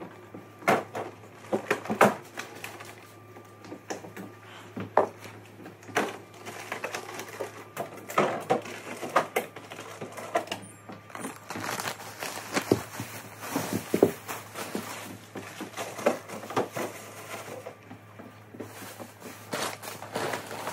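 Groceries being put away in a refrigerator: clear plastic bins and packaged items knocking and clattering against the shelves, with plastic packaging rustling, in irregular handling sounds.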